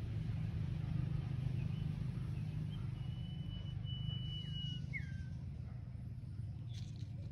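A steady low rumble, with a bird whistling one long high note about three seconds in, followed by two short downward-sliding notes.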